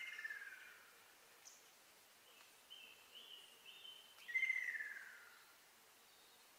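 Ruddy kingfisher calling: a falling, trilled whistle of about a second, given twice about four seconds apart, with a few short higher notes between.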